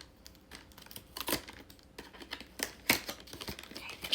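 Hands opening a small blind-box toy package: irregular sharp clicks and taps of cardboard and plastic packaging being handled and pried open.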